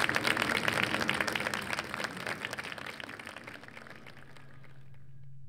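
A small audience applauding, with irregular hand claps thinning out and fading away over the first three to four seconds. A faint steady low hum is left after the clapping stops.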